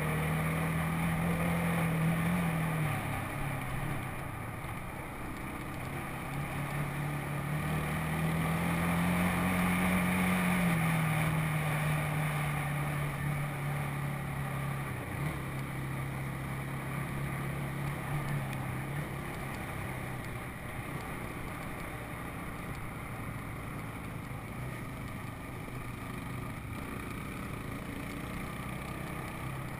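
ATV (four-wheeler) engine running while being ridden, its pitch rising and falling with the throttle: up near the start, up again around ten seconds in, then lower and steadier in the second half.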